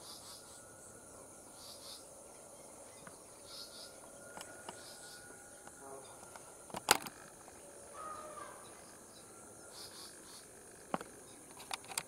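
Outdoor ambience of a steady, high-pitched insect drone with short chirping pulses every second or two. A few sharp clicks come through, the loudest about seven seconds in and several near the end.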